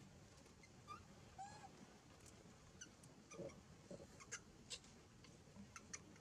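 Faint, brief high squeaks and chirps from long-tailed macaques, a couple about a second in and a few more after the middle, with scattered soft clicks.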